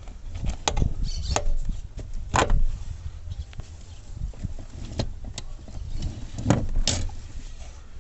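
A car seat's metal frame and rails clunking and knocking as the seat is handled and set into place in a pickup's cab, about seven irregular sharp knocks over a low background rumble.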